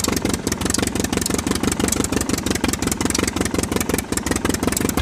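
Engine idling with a rapid, even chugging of about ten beats a second.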